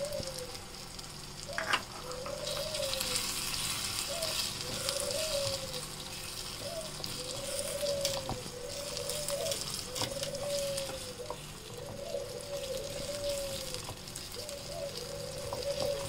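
Chicken gizzards sizzling as they fry in a spiced onion-tomato masala in a small wok, stirred with a wooden spatula. A short rising-and-falling tone repeats about every second and a half, with an occasional sharp click.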